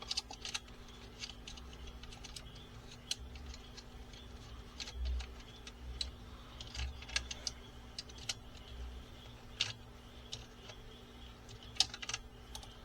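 Scattered, irregular clicks and taps of a large plastic transforming robot figure being handled, its parts moved and set into place, with a few soft low thumps, over a faint steady hum.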